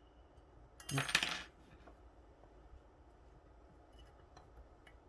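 A brief metallic jingle of small steel lock-picking tools clinking together about a second in, followed by a few faint light ticks.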